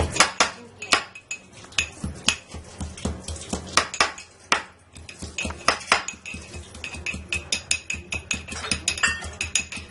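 Metal kitchen utensils clinking and knocking over and over while the ginger is prepared for the tea. The strikes are sharp and irregular at first and quicken to about four or five a second in the second half.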